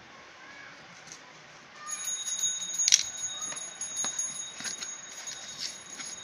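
Cardboard packaging being handled and opened, with crackling and a string of sharp ticks and snaps, the loudest about three seconds in. From about two seconds in, a steady high-pitched ringing tone runs underneath.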